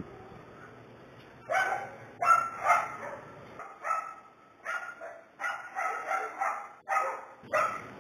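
A dog barking repeatedly: about a dozen short barks, starting about a second and a half in.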